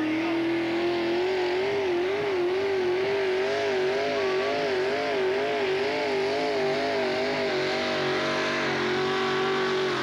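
5,000 lb modified pulling tractor's engine running hard at high revs as the tractor launches and pulls the sled. The pitch wavers up and down evenly about two or three times a second, then holds steady near the end.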